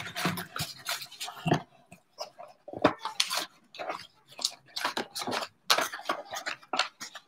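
Crinkly plastic packaging rustling as it is pulled and handled, with light clinks of a porcelain paint palette, in irregular short crackles.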